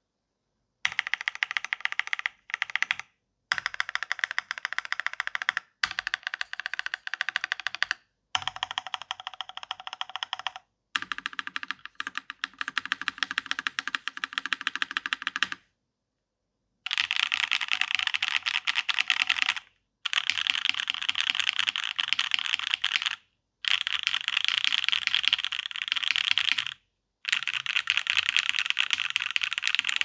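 Typing on a Daji Ocho Cuatro TKL custom mechanical keyboard with a top-mount aluminium plate, no dampening, lubed and filmed JWK Alpaca V2 linear switches and GMK ABS keycaps. Fast runs of keystrokes a few seconds long with short pauses between them; a little past halfway the clacks turn brighter and sharper.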